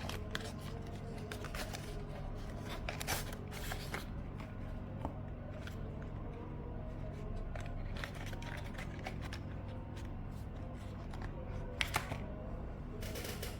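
Irregular clusters of plastic clicks and clacks from a mechanical keyboard and its keycaps, over background music.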